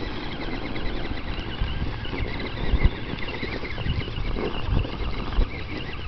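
Radio-controlled rock crawler driving over dirt and a log, its small electric motor and gears whining on and off with the throttle. A few low thumps, the loudest about three seconds in.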